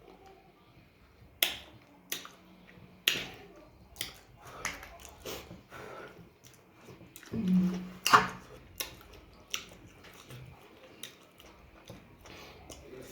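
Eating sounds: chewing, with sharp crunches and mouth clicks scattered throughout, and a short hummed "mm" about seven seconds in.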